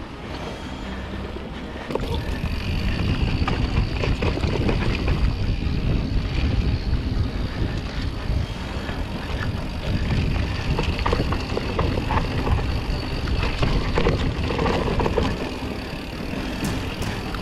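Mountain bike riding fast down a dirt trail: knobby tyres rumbling over the dirt and the bike rattling and knocking over bumps, with wind on the microphone. It gets louder about two seconds in as the pace picks up.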